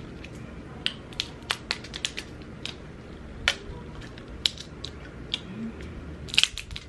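Close-miked chewing and mouth smacking: an irregular string of short, sharp, wet clicks, with a cluster of them near the end.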